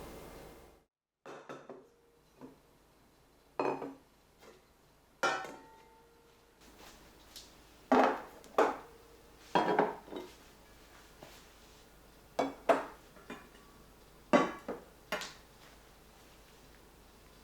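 Enamelware kitchen pieces being handled and set down: a string of irregular clinks and knocks, each ringing briefly.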